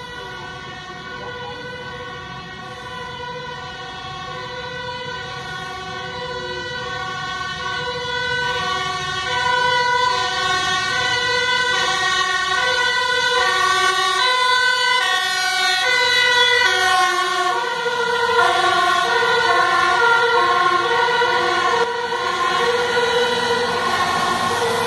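Fire engine's two-tone siren on an emergency run, alternating between a high and a low note, each held just over half a second. It grows steadily louder over the first ten seconds as the truck approaches and stays loud after that.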